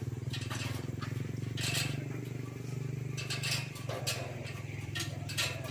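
A small engine running steadily with a rapid low pulsing, with a few short sharp clicks and taps over it.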